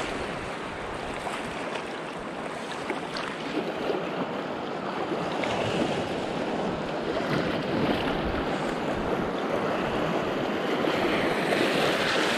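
Small sea waves washing and lapping over a shallow reef around a wading angler, with wind buffeting the microphone.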